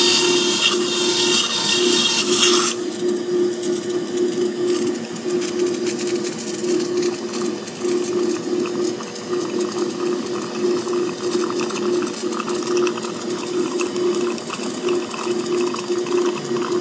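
Surgical suction aspirator running with a steady hum, slurping blood and saline from the tooth socket. For the first few seconds a high whine and hiss from the surgical handpiece cutting bone with water spray sits on top, stopping about three seconds in.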